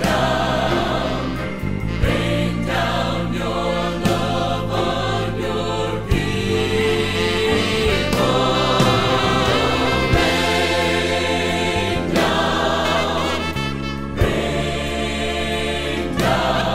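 Choir singing a sacred song with instrumental accompaniment. Sustained bass notes sit under the voices, with a strong accent about every two seconds.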